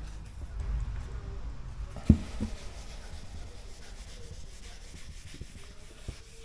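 Handheld eraser rubbing across a whiteboard, wiping off marker lines, with a sharp knock about two seconds in.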